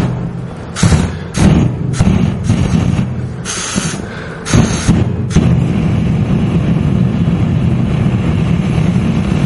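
Several knocks and short hissing bursts, then from about five seconds in a steady low rushing of flames from acetone and deodorant burning in a metal cup.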